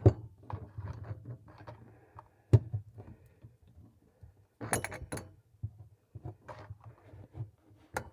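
Metal wrench clinking and knocking against the nut of a sink shut-off valve as it is fitted and worked loose: scattered sharp metallic taps, with two hard knocks, one at the start and one about two and a half seconds in, and a quick run of clinks about five seconds in.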